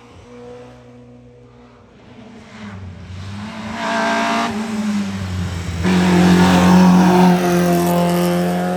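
VW Polo hillclimb race car accelerating up the course towards the microphone at high revs, its engine growing louder from a few seconds in and loudest over the last three seconds.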